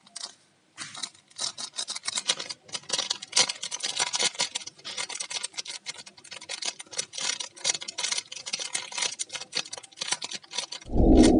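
Plastic Royco bouillon sachet crinkling as fingers squeeze and shake it, tapping powder out: dense rapid crackles. Near the end, a short loud low thud.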